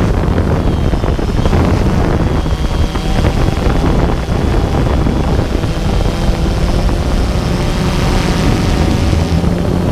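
A DJI Phantom 2 quadcopter's motors and propellers buzzing steadily in flight, heard up close through the GoPro mounted on it, with wind rushing over the microphone.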